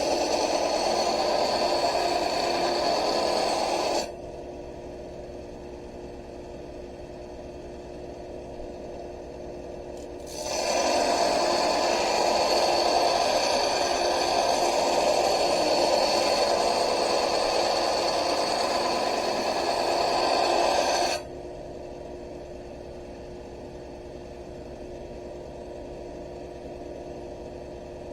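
Power grinder grinding a forged railroad-spike steel blade in two long passes, with loud, even scraping while the steel is on the wheel or belt. The first pass stops about four seconds in; the second runs from about ten seconds to just past twenty. Between the passes the grinder's motor keeps running with a steady hum.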